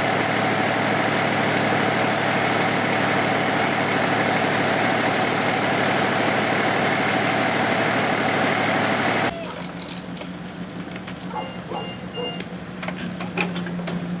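Large truck engine idling loudly and steadily. About two-thirds of the way through it cuts off abruptly, leaving a quieter steady low hum with scattered clicks.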